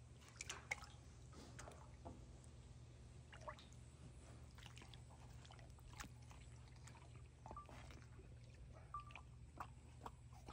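Faint, scattered drips and small splashes of pool water, with wet squishing as a black big cat bites into a floating watermelon.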